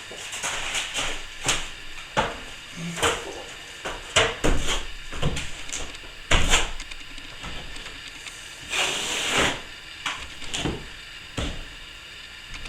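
Hand plastering tools working a cracked ceiling joint: irregular knocks and short scrapes as plaster is pushed up into the joint, with a longer scrape about nine seconds in and the loudest knock a little past the middle.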